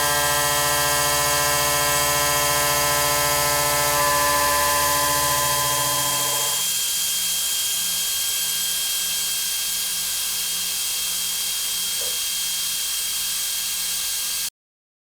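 Machine-tool cutting under a steady hiss of coolant spray: a steady pitched cutting tone for about the first six seconds, shifting slightly partway through, then only the hiss, which cuts off suddenly near the end.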